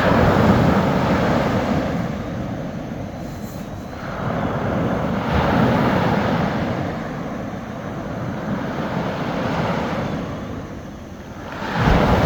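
Small sea waves breaking on a beach, the surf noise swelling and fading in surges every four to six seconds.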